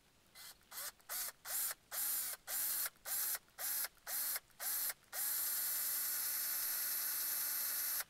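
Cordless drill boring into a birch log: about ten short trigger pulses, the motor whining up to speed each time, then a steady run of about three seconds.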